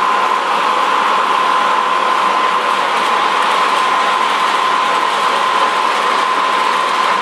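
Lionel O-gauge model subway train running on three-rail track: a steady rushing hiss with a constant high whine.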